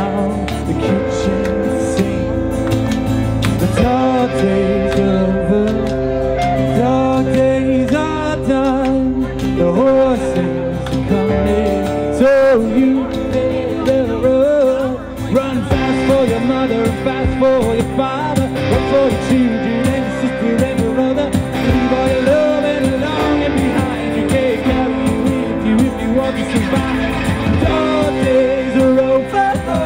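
A live pop-rock band playing: a man singing lead over strummed acoustic guitar, electric guitar, keyboard and drums.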